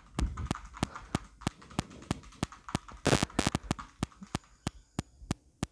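A steady run of sharp clicks, about three a second, with a brief louder rustle about three seconds in.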